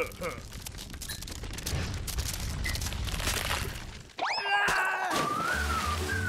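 Cartoon ice cracking: a dense run of crackling and splintering over a low rumble as the frozen lake's ice breaks up beneath the character. About four seconds in, the crackling gives way to a sudden rising squeal and a wavering high whine.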